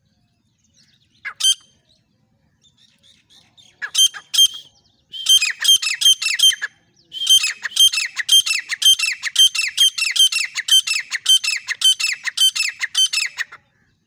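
Grey francolin calling: one short note about a second and a half in, then from about four seconds a loud, fast run of repeated harsh notes, about three a second, with a brief break partway through, stopping shortly before the end.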